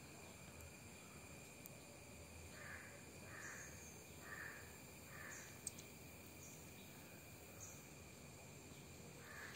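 Faint outdoor ambience: a crow cawing four times in a row, evenly spaced, over a steady insect drone.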